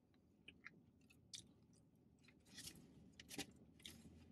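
Faint chewing and mouth sounds of someone eating fried chicken: scattered soft clicks, with a few brief, louder crunchy rustles a little past halfway and near the end.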